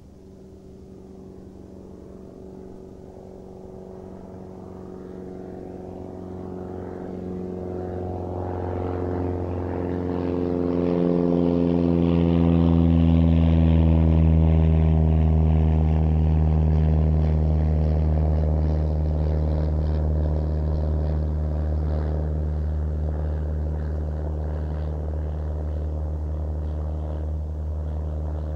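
Propeller-driven airplane flying over, its engine drone growing louder to a peak about halfway through, dropping in pitch as it passes, then slowly fading.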